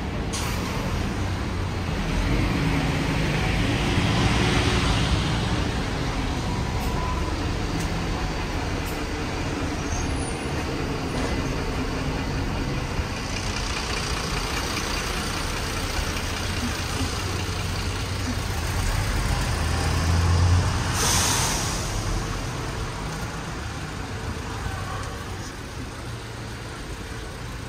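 Street traffic beside a city bus: steady engine and road noise from the bus and passing cars. A broad swell of noise comes a couple of seconds in, and a short, sharp burst of hiss comes about three quarters of the way through.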